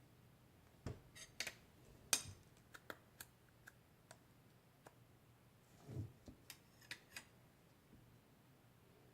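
Scattered soft clicks and taps, about a dozen spread irregularly, the sharpest a little after two seconds in, with a duller thud about six seconds in.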